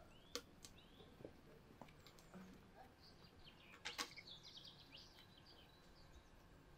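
Near silence with faint bird chirps and twittering, busiest between about three and four and a half seconds in, and a few sharp clicks, the loudest about four seconds in.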